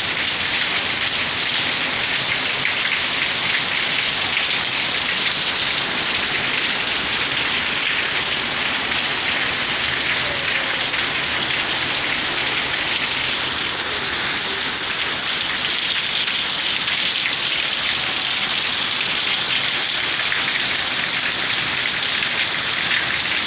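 Heavy rain pouring down steadily, with water falling off a roof.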